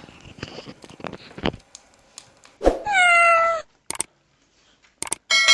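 A cat meows once, a single call of under a second about three seconds in, with a slightly falling pitch. Small clicks and rustles come before it, and a ringing metallic ding begins right at the end.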